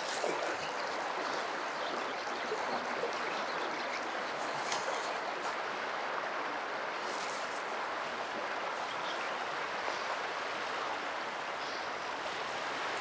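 Shallow river rapids rushing over rocks: a steady, even wash of running water.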